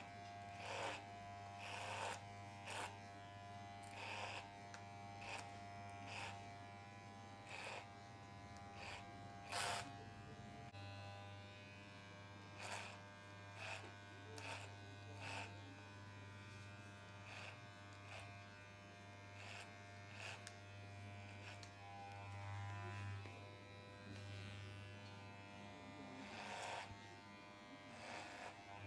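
Electric hair clipper or trimmer buzzing steadily, with short sharp clicks or taps repeated irregularly over it, about one a second at first and sparser later.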